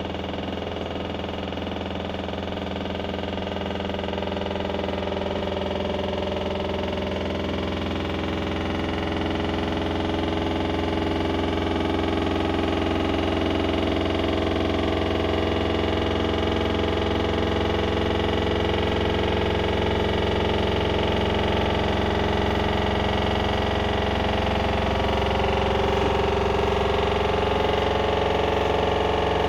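LG washer-dryer combo spinning, a loud steady mechanical noise over a low hum that slowly grows louder, with some tones creeping up in pitch near the end as the drum speeds up. On the 1400 spin it sounds like a jackhammer; the machine is level, nothing outside touches it and the drum bearing has no play, so the cause is unexplained.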